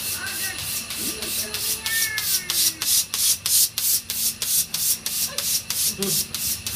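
A rhythmic rasping hiss, pulsing about four times a second, in a dark ride's ringed effects tunnel.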